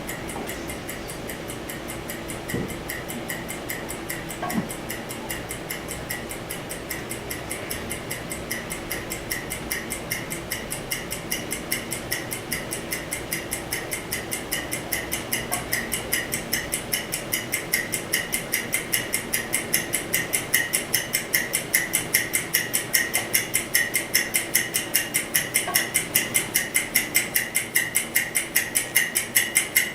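Clock ticking, played as a sound effect: a rapid, even ticking that grows steadily louder, marking time running out in an exam.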